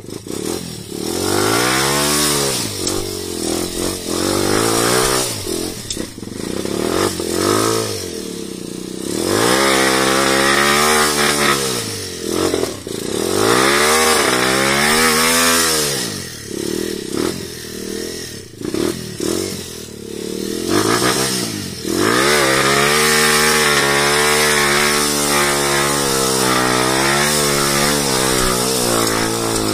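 Off-road trail motorcycle engine revving up and down again and again, its pitch climbing and falling every couple of seconds, then held high and steady for the last several seconds.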